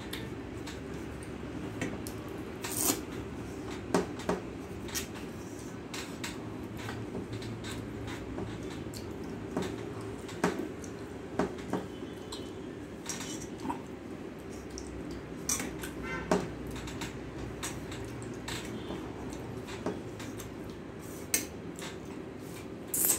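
Fingers mixing rice and scraping across a stainless steel plate, with scattered clicks and taps against the metal over a steady hum.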